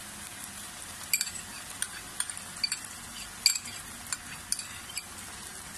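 Mixed vegetables stir-frying in oil in a frying pan: a steady sizzle with a scattering of sharp clicks and pops from about a second in.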